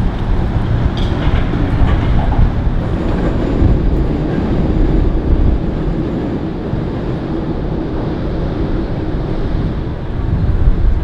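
Loud, steady low rumble of a train crossing the Sydney Harbour Bridge overhead.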